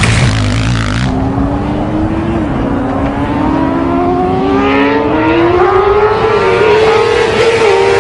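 Motorcycle engine accelerating hard, its pitch climbing steadily with a brief dip about two and a half seconds in, like a gear change. It follows a loud rushing noise that cuts off about a second in.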